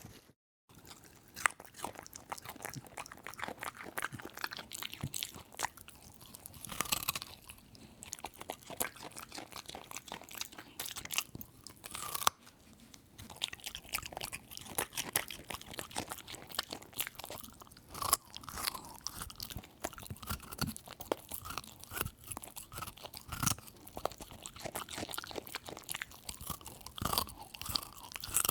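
Close-up crunching and chewing of crisp food: dense, irregular crackling bites and chews. The sound drops out briefly about half a second in and dips again near twelve seconds, where one recording gives way to the next.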